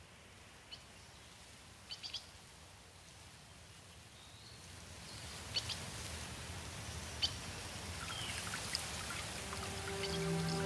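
Faint outdoor ambience: a few short bird chirps over the rush of a small stream trickling over rocks, which swells gradually. Soft music fades in near the end.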